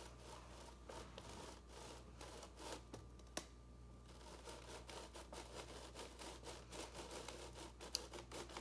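Faint, irregular rubbing and scratching of a paper sheet being pulled slowly out from under a layered sand model, which slides and deforms the sand. Two sharper clicks come about three and eight seconds in.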